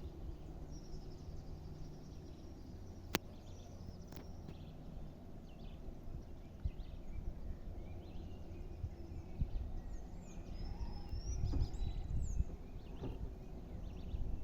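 Faint outdoor countryside ambience with a few high bird chirps and whistles, and a single sharp click about three seconds in. A low rumbling noise grows near the end.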